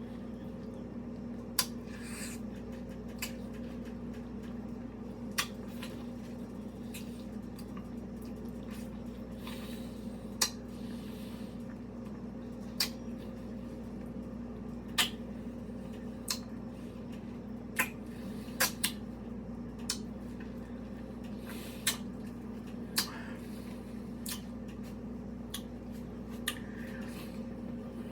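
A ripe mango being handled and eaten: soft wet squishes and scattered sharp clicks, one every second or two, over a steady low hum.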